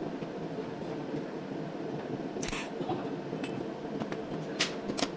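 SZ-GCS16 cold welding machine running with a steady hum, with a few sharp clicks: one about halfway and two near the end.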